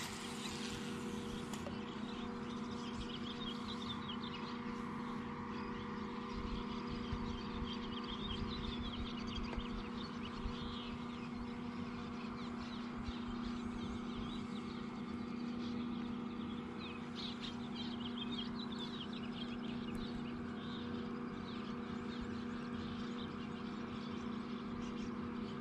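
Birds chirping outdoors over a steady, even hum.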